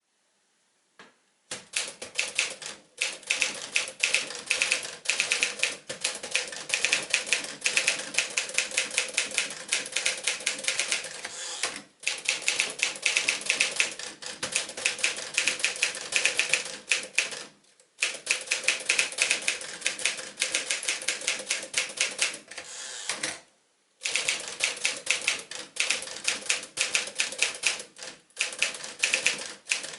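Typing on a 1957 Smith-Corona Silent-Super manual portable typewriter: rapid runs of key strikes, broken by short pauses every few seconds.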